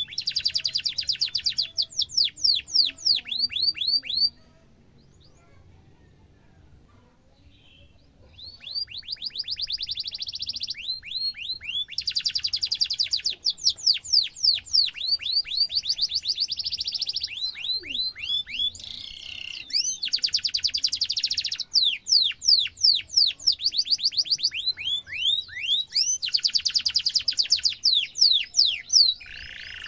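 Domestic canary singing a long song. It runs in phrases of rapid trills of falling whistled notes alternating with dense buzzing rolls. After the first phrase there is a pause of about four seconds.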